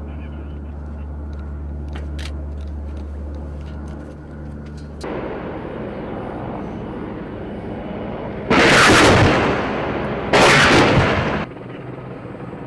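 An AH-64 Apache attack helicopter firing its weapons in two loud bursts about a second apart, each lasting a second or so. The second burst cuts off abruptly. Before them a steady low hum runs for several seconds.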